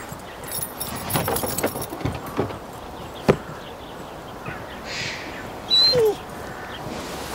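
Boots walking off over dirt, with a light metallic jingling and a single sharp click. Near the end comes a Doberman's short falling whine, the loudest sound.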